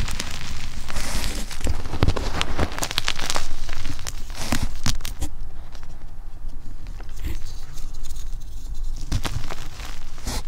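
Hands scooping and crumbling a pile of crushed gym chalk powder and lumps, a gritty crunching with many small sharp crackles as the lumps break and the powder falls. Busier for the first five seconds or so, then quieter with scattered crackles.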